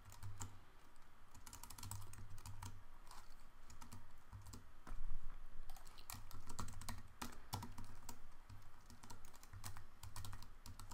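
Typing on a computer keyboard: an uneven run of key clicks, with a louder cluster about five seconds in.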